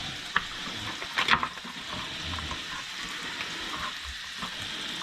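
Bacon frying in a pan of oil and butter with a steady sizzle. A few sharp clicks cut through it, the loudest cluster coming a little over a second in.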